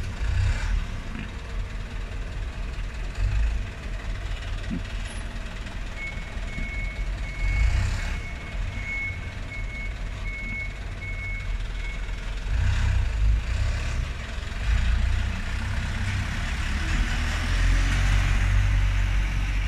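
Light box truck's diesel engine idling, with a run of about ten short, high, evenly pitched beeps over some six seconds. About two-thirds of the way through, the engine gets louder as the truck pulls through the gate and passes close by.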